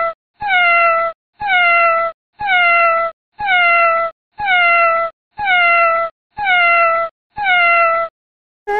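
A domestic cat's meow, the same call repeated about once a second, eight times, each with a slightly falling pitch. A different short call begins right at the end.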